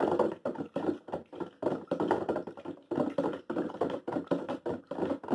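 A utensil stirring water with dissolving salt and baking soda inside a plastic bottle, tapping and scraping against the plastic in a quick, irregular run of clicks.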